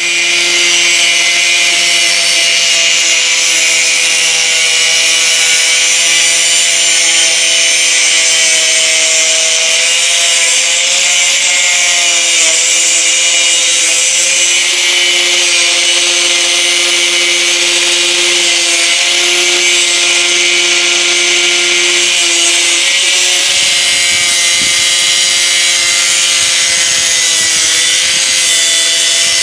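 Handheld electric cutting tool running continuously under load, its motor tone wavering slightly in pitch over a loud, steady hiss of cutting. A little after two-thirds of the way through, the lowest hum drops out and a rougher rumble comes in.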